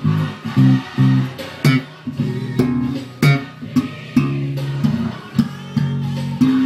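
Electric bass guitar playing a line of plucked low notes with sharp attacks, against gospel music.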